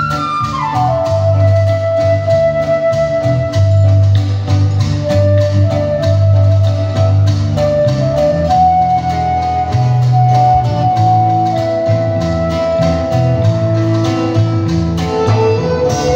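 Live band playing an instrumental passage: a flute carries a held melody, opening with a quick falling run, over strummed acoustic guitar, electric bass and percussion keeping a steady beat. Violins come in near the end.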